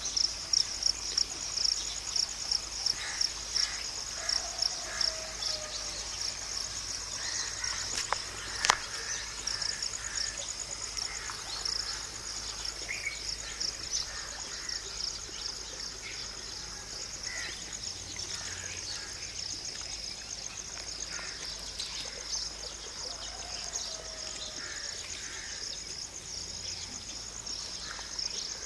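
Insects chirping in a steady, high-pitched pulsing chorus, loudest in the first few seconds, with two sharp clicks about eight seconds in.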